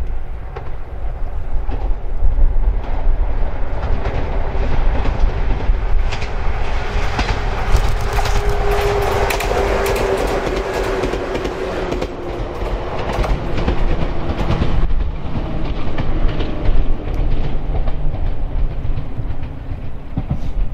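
A Toyama Chiho Railway electric train passing close by: a rumble builds up, the wheels click over rail joints, and a steady whine drops slightly in pitch as it goes past. It is loudest around the middle and dies away over the last few seconds.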